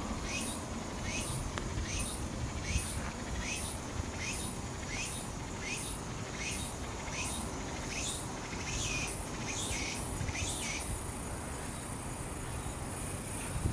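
An insect calling: a high chirp repeated about every three-quarters of a second, each with a short falling note, changing to a steady high buzz about eleven seconds in.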